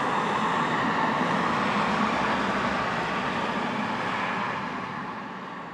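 Three F-16 Fighting Falcon fighter jets passing overhead in formation: a steady rushing jet-engine roar that begins to fade away about four and a half seconds in.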